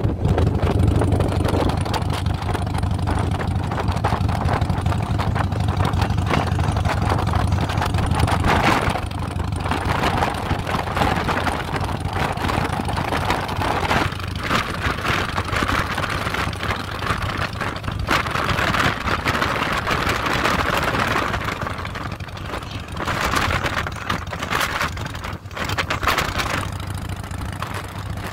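Motorcycle running at road speed, its engine a steady low hum under the rush of wind and road noise. The hum is strongest for the first eight seconds or so.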